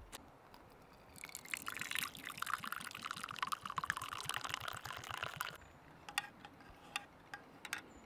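Water poured in a steady stream from a stainless steel thermos flask into a camping cup holding a mesh tea infuser, for about four seconds, followed by a few faint clicks.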